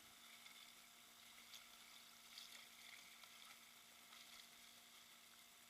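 Faint, steady rush of river water running over shallow rapids, with a low steady hum underneath.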